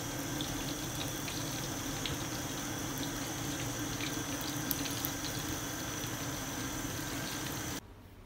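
Fish rolls sizzling in hot oil in a frying pan: a steady hiss peppered with small crackling pops, which cuts off suddenly near the end.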